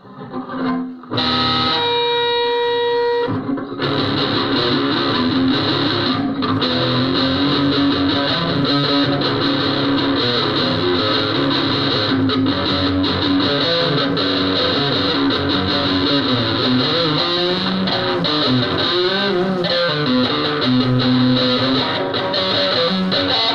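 Electric guitar played through heavy distortion: a single held, ringing note about two seconds in, then dense, continuous distorted playing.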